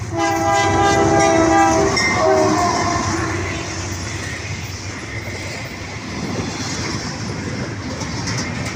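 Diesel freight locomotive's air horn sounding a chord at close range for about two seconds, then a short blast. The locomotive and freight cars then roll past with a steady noise of wheels running on the rails.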